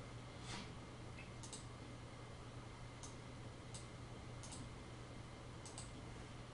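Computer mouse buttons clicking, faint and sharp, about seven clicks at irregular intervals, some in quick pairs, over a steady low hum of room or microphone noise.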